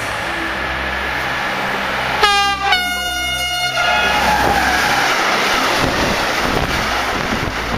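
Class 189 electric locomotive sounding its two-tone horn, two notes in quick succession about two seconds in, as it runs through with a freight train of tank wagons. The loud rush and rumble of the wagons' wheels on the rails follows as the train passes close by.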